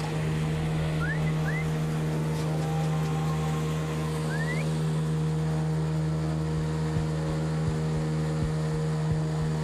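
A steady engine hum holding one unchanging pitch, with three short rising whistles: two about a second in and one about four and a half seconds in.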